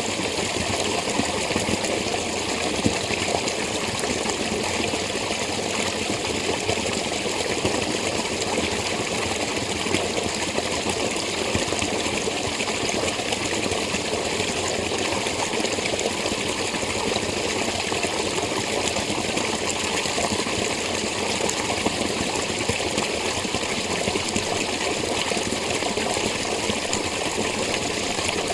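Spring water running steadily, a continuous trickling and splashing flow.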